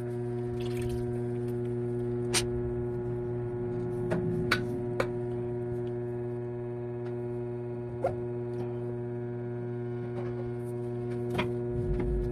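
Steady electrical mains hum, with a handful of brief sharp clicks and taps scattered through it.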